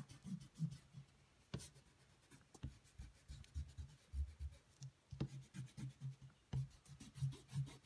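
Rubber eraser rubbing on drawing paper in short, irregular strokes, erasing stray pencil lines from a compass drawing.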